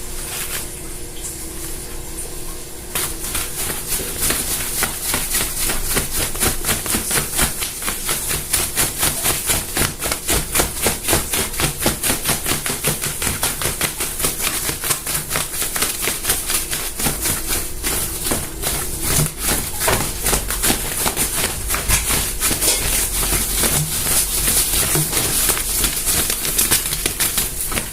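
A long run of quick, irregular clicks and taps, several a second, growing denser after the first few seconds: a homemade sound effect being made.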